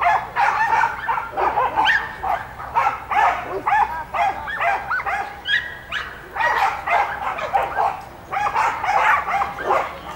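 A dog barking rapidly and repeatedly in quick runs, with a few short pauses.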